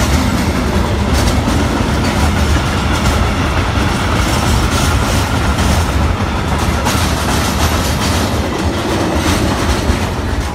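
Freight train of mixed goods wagons passing close by: a loud, steady rolling rumble, with the wheels knocking again and again over rail joints.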